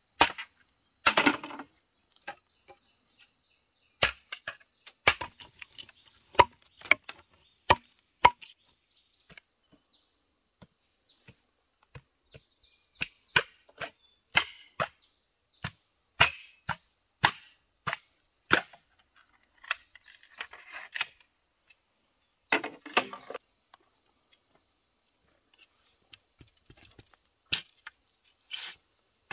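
Bamboo being chopped: sharp single knocks on wood, about one a second in runs, with short pauses between the runs.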